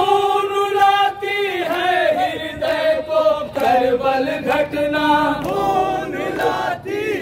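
A group of men chanting a noha, a Shia Muharram lament, in unison into handheld microphones. Several long held notes run through the chant.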